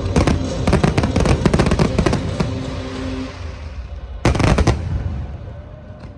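Aerial fireworks going off in a rapid barrage of bangs and crackles, with a second loud cluster of bursts about four seconds in, then dying away.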